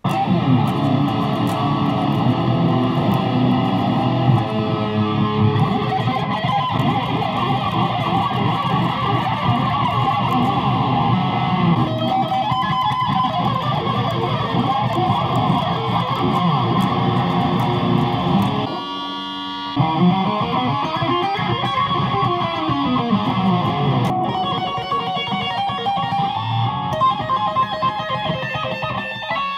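Unaccompanied BC Rich Warlock electric guitar being played in a continuous run of rock riffs and picked lines. There is a brief lull about two-thirds of the way through, then rising and falling pitch slides.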